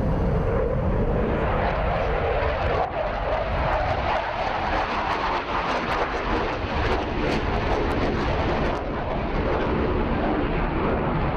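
Dassault Rafale fighter jet in flight overhead, its twin turbofan engines making a steady, dense rushing jet noise.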